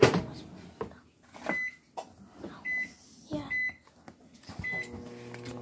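A knock, then a microwave oven's keypad beeping four times about a second apart. Near the end the oven starts running with a steady low hum.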